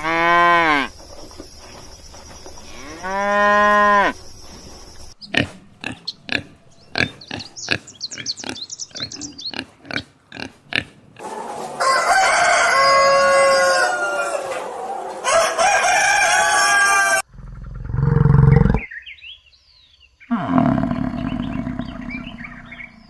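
A run of different animal calls cut one after another: two falling calls near the start, then a string of short sharp clicks, then longer, fuller calls, and a deep low sound past the middle.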